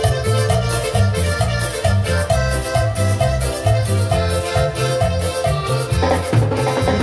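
Live cumbia band playing: a keyboard melody over a bass line, with timbales and cymbals keeping a steady, even beat.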